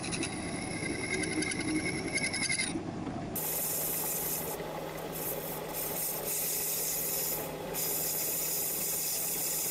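Myford ML7 metal lathe running and turning down a brass rod, a steady mechanical hum with the hiss of the cutting tool. The sound changes abruptly about three seconds in to a steadier noise with a low hum.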